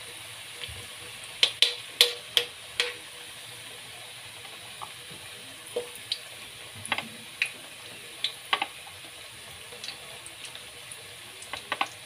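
Sweet potato sticks deep-frying in hot oil in a wok: a steady sizzle with sharp crackling pops every second or so, a cluster of them about two seconds in and again near the end.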